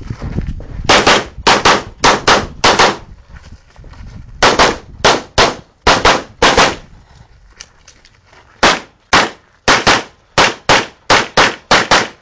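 Rapid gunfire from a shooter running a timed practical-shooting stage: around two dozen shots, mostly fired in quick pairs, with two short pauses about three and seven seconds in.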